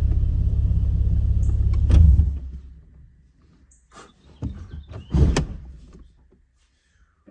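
Nissan 370Z's 3.7-litre V6 idling with a steady low rumble, then switched off about two seconds in, the rumble dying away. A couple of knocks follow.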